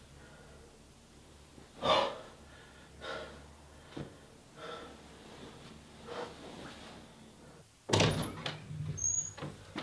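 A man breathing heavily in a few long, ragged breaths. About eight seconds in, a door bangs open with a cluster of knocks and a brief high squeak.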